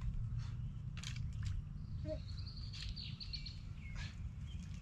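Outdoor waterside ambience with a steady low rumble. A small bird chirps in a quick run of high notes about three seconds in, among a few faint clicks and knocks.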